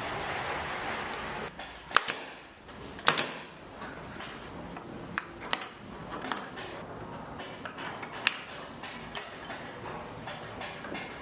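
Scattered sharp clicks and knocks of hard objects being handled and set down, the loudest two about two and three seconds in, after a short stretch of hiss at the start.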